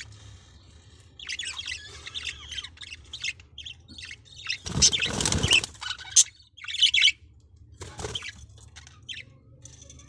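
Budgerigars chirping in short, high, scratchy calls, with a loud burst of wing flapping about halfway through and a shorter one near the end.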